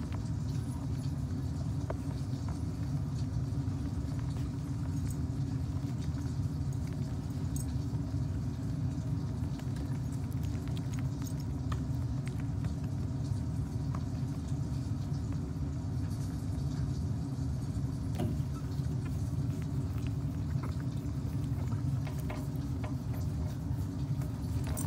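A steady low rumble that does not change, with a few faint scattered ticks above it.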